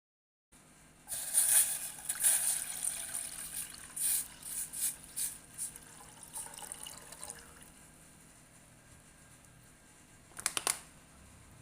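Water running and splashing in uneven bursts that fade away, then one short splash about ten seconds in.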